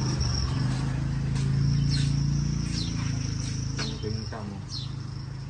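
Insects keep up a steady high-pitched drone over a low steady hum, with a short falling chirp about once a second.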